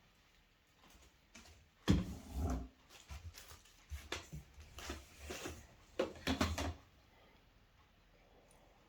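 Hard plastic vacuum-cleaner parts being handled and fitted together: a series of irregular knocks and clicks with low thuds, loudest about two seconds in and again around six seconds in.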